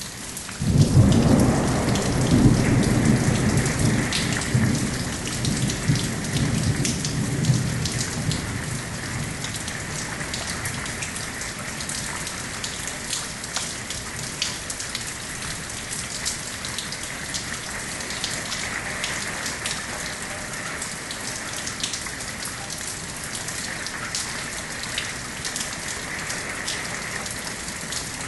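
Steady rain falling, with many drops clicking close by. About half a second in, thunder cracks suddenly and rolls on as a long, low rumble that dies away over about ten seconds.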